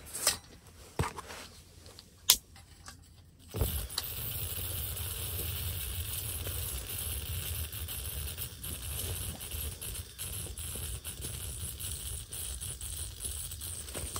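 A few sharp clicks, then about three and a half seconds in a pump-pressurised liquid-fuel camp stove catches and burns with a steady rushing hiss and low rumble. It is flaring up because the tank was overfilled and over-pumped.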